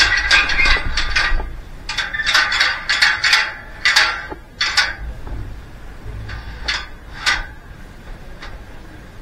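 Metal ladder clanking and rattling as it is gripped and handled: a series of sharp metallic knocks, thickest in the first four seconds, with a few more later on.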